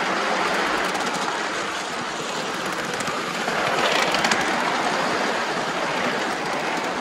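Van Brocklin-built 3.5-inch gauge live steam locomotive running along the track: a steady rushing noise of the working engine and wheels on rail. It gets louder with a few sharp clicks about four seconds in.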